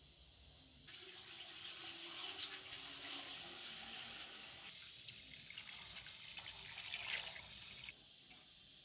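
Water pouring from a large plastic jug into an aluminium pot, a steady splashing stream that starts about a second in and stops near the end.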